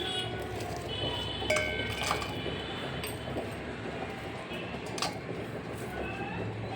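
Kitchen utensils clinking against dishes: a few sharp clinks, each with a short ringing tone, over a steady low hum.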